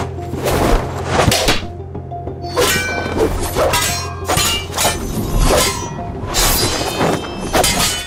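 Background music with a steady low drone, overlaid by a fast series of staged fight sound effects: swishes of swung sleeves and blades, and sharp hits and clashes, several every second.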